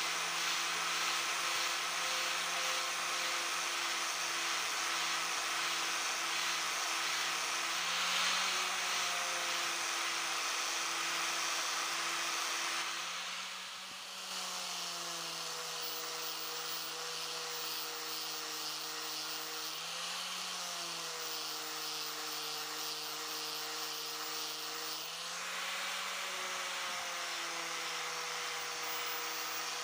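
Angle grinder with a sanding disc running steadily and grinding a steel knife blank, a motor whine over a constant grinding hiss. The motor's pitch rises briefly four times, and the grinding hiss drops for a moment about halfway through.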